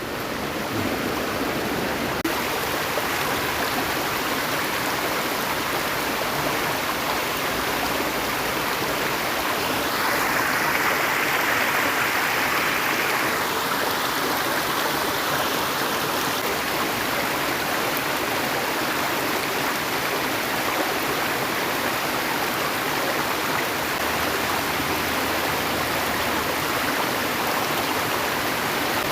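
Steady rush of flowing stream water, with the hiss a little louder for a few seconds about ten seconds in.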